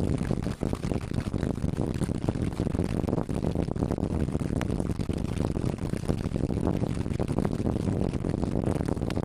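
Class 37 diesel locomotive's English Electric V12 engine running as it hauls the train, heard from an open window just behind it, blended with steady rushing air and wheel-on-rail noise.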